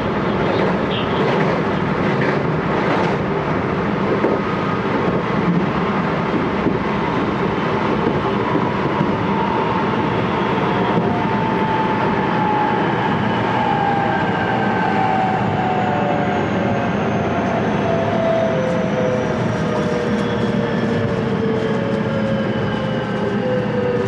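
Running sound inside the motor car of a JR West 223 series 1000-subseries electric train with Hitachi VVVF inverter control: a steady rumble of wheels on rail with a few clicks in the first seconds. From about two thirds of the way in, the motor whine's tones slide steadily down in pitch as the train slows.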